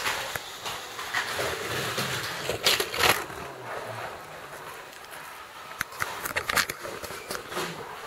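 Small 12-volt electric slot cars running on an off-road slot track, with a loud burst of clatter a little under 3 seconds in and a run of sharp rattles and ticks around 6 seconds as the cars go over the rough track surface.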